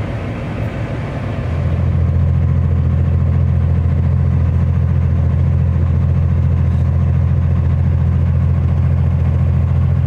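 Cummins ISX diesel engine of a Kenworth W900L idling steadily, heard from inside the parked cab as a deep, even hum. It gets louder about a second and a half in and then holds steady.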